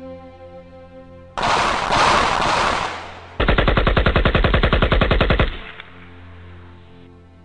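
Automatic gunfire over soft background music. A sudden loud burst starts about a second and a half in and lasts under two seconds, then a second, rapid rattle of shots runs for about two seconds and stops abruptly.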